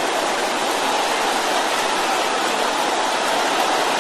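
A large congregation praying aloud all at once, many voices blending into a steady, even wash of sound.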